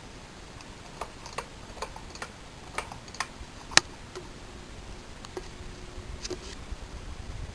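Encon ceiling fan running on high, close up: a string of sharp, irregularly spaced ticks over the steady whir of the fan, the loudest tick about four seconds in. A faint hum comes in for a couple of seconds in the second half, from a motor the owner says is starting to wear out.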